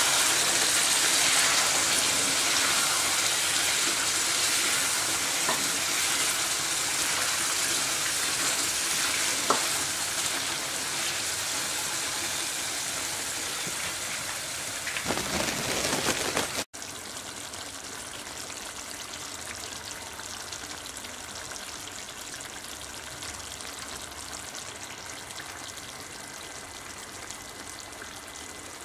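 Deer meat curry frying in an aluminium pot on a gas burner, with a steady sizzle while it is stirred with a wooden spoon. About 17 seconds in the sound drops abruptly to a quieter, steady hiss.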